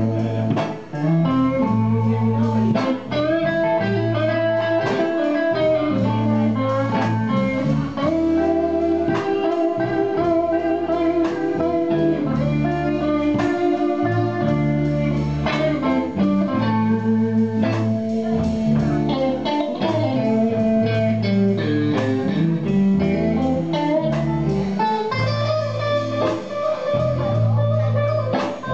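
Live blues band playing an instrumental passage: electric guitars over a repeating bass line, with drums.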